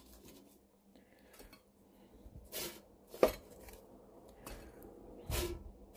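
Kitchenware handling as baked pastries are lifted by hand from an air fryer basket and set on a plate: a handful of scattered light knocks and clinks, the sharpest a little past three seconds in.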